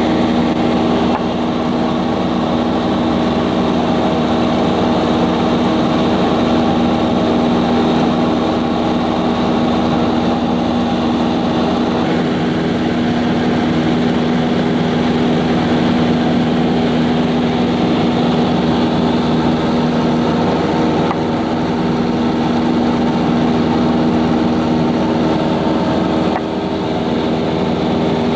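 Cessna Skyhawk II's four-cylinder piston engine and propeller holding a steady drone in cruise, heard from inside the cabin.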